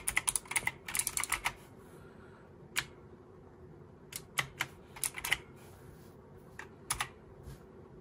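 Keys of a Pictek PC244A mechanical keyboard being pressed: a quick run of clicking keystrokes at first, then a few scattered single presses and a short burst in the middle.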